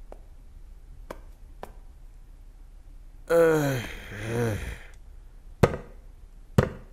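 A drunk man's long groaning sigh, falling in pitch, about three seconds in, followed by two loud bangs of a fist on a wooden door about a second apart.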